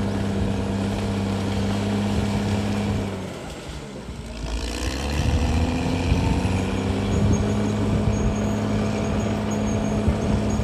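CAT D6R XL bulldozer's diesel engine running steadily at working revs. About three seconds in the engine note sags in pitch and level, then rises again a second or so later and runs on.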